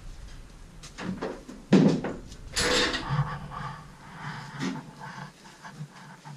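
Footsteps and shuffling on a plate-aluminium boat deck: scattered knocks, with a louder thump about two seconds in and a brief rustling rush just after.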